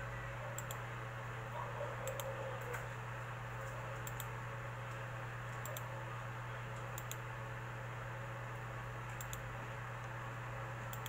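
Computer mouse button clicking, a sharp press-and-release pair every second or two, over a steady low hum.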